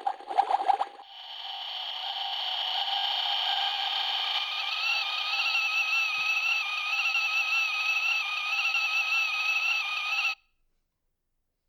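Toy kettle sound effect: a brief burst of rapid pulsing, then a steady whistle that swells in, wavers slightly, and cuts off abruptly about ten seconds in.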